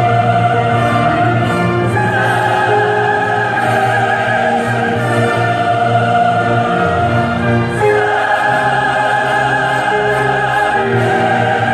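Church choir singing slow, long-held chords with instrumental accompaniment.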